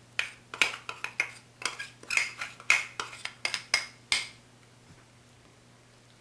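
Metal spoon clinking against glass bowls as cornstarch is scraped out of a small glass bowl into a mixing bowl. It makes a quick run of about a dozen clinks that stops about four seconds in.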